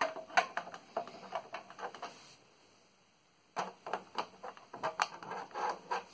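A 3.5-inch floppy disk being pushed into a Macintosh Portable's floppy drive: two spells of quick, irregular plastic clicks and rattles, the second starting about three and a half seconds in.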